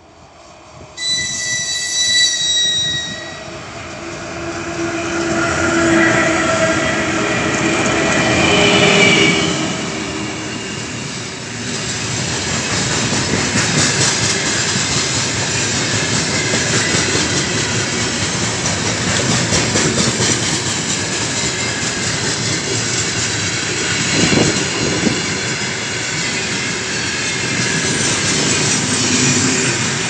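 Two 3ES5K 'Ermak' electric locomotives heading a heavy double freight train. About a second in comes a short high-pitched whistle blast as a greeting; the locomotives then approach and pass. From about twelve seconds the long train of freight gondolas rolls past close by, a steady loud rolling noise with a run of clicks from the wheels.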